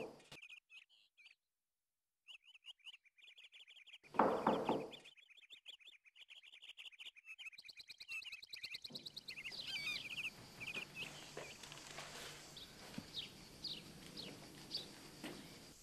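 Small birds chirping over a faint hiss: a fast, high trill for several seconds, then scattered short chirps. A brief, louder low sound comes about four seconds in.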